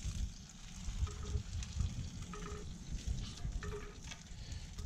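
Basting brush dabbing barbecue sauce over a rack of ribs on a drum smoker's hot grate: soft, wet, irregular brushing strokes. Under it is a steady low rumble of wind on the microphone.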